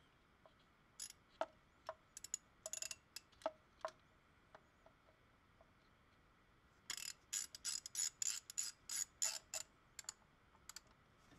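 Clicking of a hand ratchet wrench tightening a bolt: a few scattered clicks, then a quick run of about a dozen clicks, roughly four a second, over the last few seconds.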